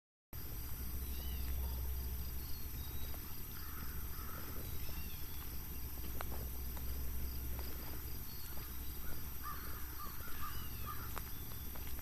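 Outdoor ambience: birds call faintly several times, with short high chirps and a few harsher calls clustered around four seconds in and again near ten seconds in, over a steady low rumble on the microphone. The sound drops out briefly at the very start.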